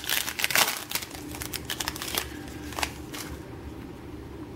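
Crinkling and crackling of a Panini Prizm trading-card pack wrapper as it is torn open and the cards slid out: a quick run of crackles for about three seconds, then quieter handling of the cards.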